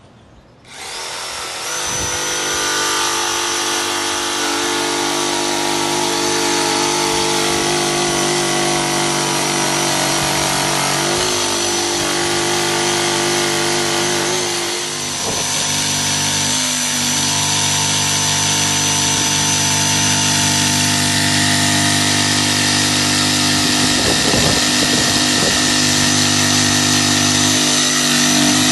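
DeWalt 20V XR cordless jigsaw running and cutting through a painted wooden board. The blade strokes up and down as it saws. It starts about a second in, runs steadily with a short dip about halfway, then carries on.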